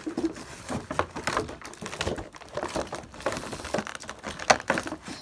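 Clear plastic toy packaging being handled and pulled at, crinkling with irregular clicks and taps.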